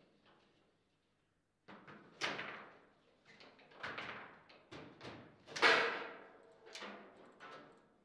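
Foosball table in play: a string of sharp, irregular knocks and clacks as the ball is struck by the figures and hits the table, starting about a second and a half in, with the loudest bang about five and a half seconds in.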